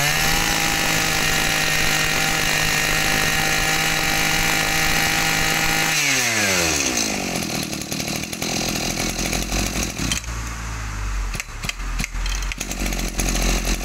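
A 26cc two-stroke brush cutter engine is held at high revs with a steady, high-pitched whine. About six seconds in the throttle is released and the revs fall away smoothly, settling to a low idle.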